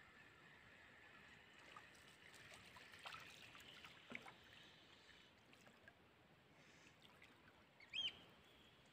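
Faint splashing as a hooked fish is reeled in across calm river water toward the bank, with small scattered clicks. A steady insect chirring fades out in the first couple of seconds, and a short high squeak about eight seconds in is the loudest sound.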